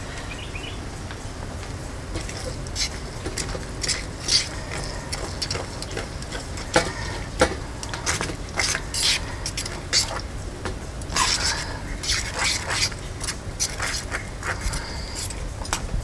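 Clinks, scrapes and knocks of a small metal camp pot and fork against a stainless-steel Solo Stove Lite wood stove, as the pot is lifted off, a new piece of wood is fed into the firebox, and the pot is set back on and stirred. The sharp clicks begin about two seconds in and come irregularly from then on.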